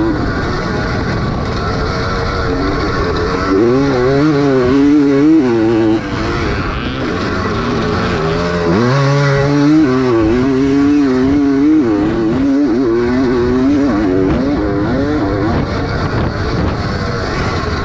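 Engine of a vintage 250 cc motocross bike under race load, its pitch climbing and falling as the throttle is worked through the gears. It drops off briefly about six seconds in for a corner, then climbs again.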